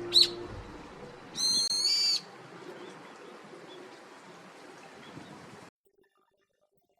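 Wild bird calls over faint outdoor background noise: a short sharp call just after the start, then a loud, drawn-out whistled call lasting under a second. The last notes of background music fade at the start, and all sound cuts off about three-quarters of the way through.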